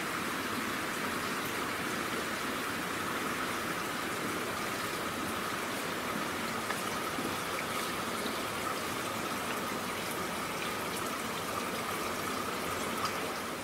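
Steady rain falling at night onto a wet paved platform and its puddles: an even hiss of rain with many small drop ticks through it.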